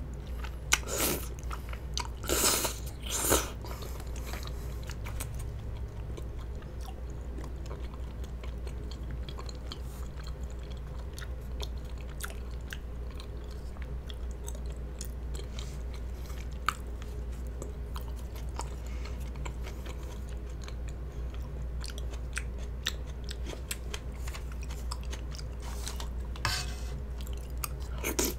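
Close-miked chewing of chewy rice cakes in spicy sauce, with small sticky clicks throughout. A few louder slurps come in the first few seconds and again near the end.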